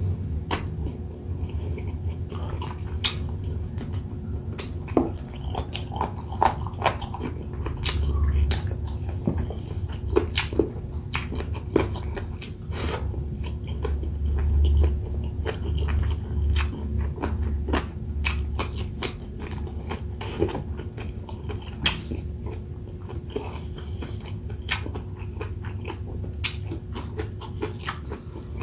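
Close-miked chewing and biting of grilled chicken and rice, with many irregular wet mouth clicks and smacks over a steady low hum.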